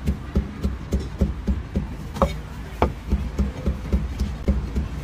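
Meat cleaver chopping roast meat on a thick round wooden chopping block: rapid, even dull thuds, about four strokes a second.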